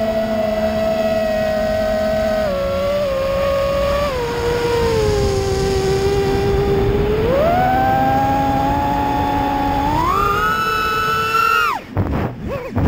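5-inch FPV racing quad's brushless motors and propellers whining, the pitch sliding down and up with the throttle. Near the end the whine drops almost away for a moment as the throttle is cut, then spools back up.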